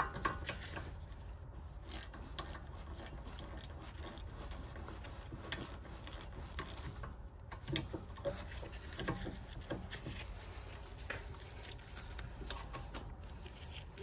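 Spanner being worked on a rear brake caliper's lower guide bolt, tightening it: irregular light metal clicks and ticks over a steady low hum.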